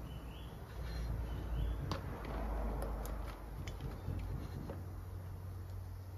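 Faint handling noise and a few scattered small metallic clicks as a valve spring compressor is worked on a Honda C70 cylinder head to seat the valve collets, over a low steady rumble.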